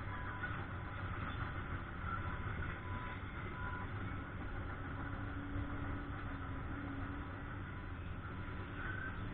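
Diesel engine of heavy work equipment running steadily, with a few short, faint beeps early on.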